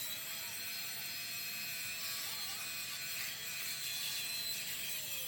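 A workshop machine's motor running with a steady whine over a hiss, the whine dropping in pitch near the end as the machine winds down.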